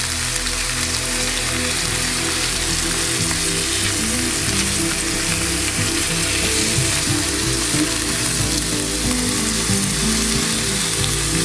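Tahr steaks sizzling steadily as they fry in lard in a non-stick skillet, being turned over with a spatula.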